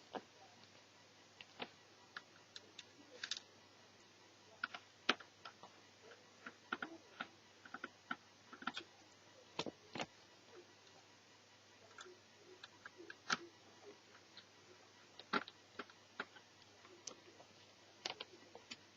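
Light, irregular clicks and taps, a few sharper than the rest, as small screws, a screwdriver and plastic parts of an Asus Eee PC netbook are handled during its teardown.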